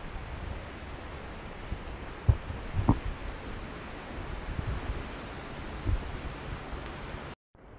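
Action-camera microphone noise while walking: a steady hiss with a thin, high, unchanging whine, broken by a few dull knocks about two, three and six seconds in. Near the end the sound cuts out abruptly.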